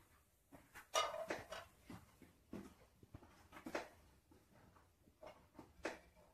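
Faint kitchen handling sounds: a scattering of soft knocks and clicks, about seven in all, the loudest about a second in, while julienned ginger is sprinkled over chicken karahi in a pot.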